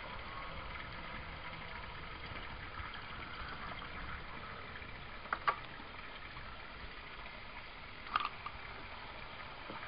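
Steady splashing of a stream of water pouring from the U-siphon's drain pipe into a bucket of water. The siphon has settled into equilibrium and runs continuously instead of cycling. Two brief sharp clicks about five and eight seconds in.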